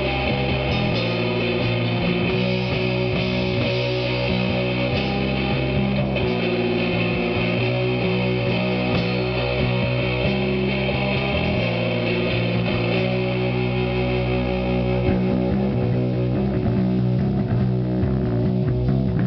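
Rock music led by electric guitar, with bass, playing loud and unbroken.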